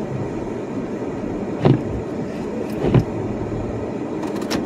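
Steady hum of an idling car heard from inside the cabin, with dull thumps roughly every one to two seconds.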